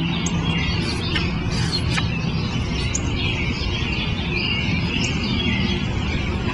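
Outdoor garden ambience: a steady low rumble, as of distant traffic, with birds chirping now and then. The last held note of a guitar fades out about a second in.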